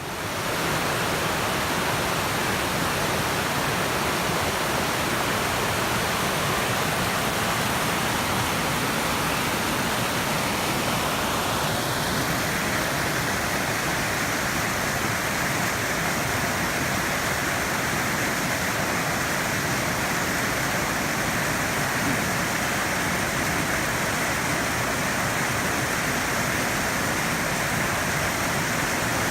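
Steady, loud rush of flowing water, like a river or waterfall, starting abruptly.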